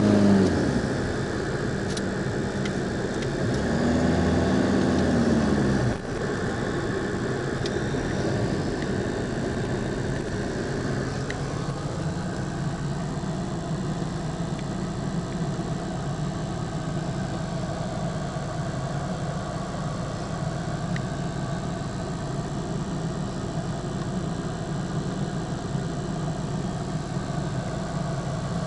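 An engine running, its pitch rising and falling twice in the first six seconds, then settling into a steady run.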